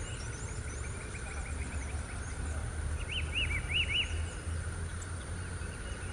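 Small birds calling: thin high chirps throughout, and about three seconds in a quick phrase of four or five arched whistled notes. A low steady rumble runs underneath.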